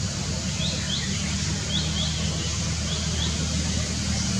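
A bird giving short high chirps in pairs, three pairs about a second apart, over a steady low background rumble.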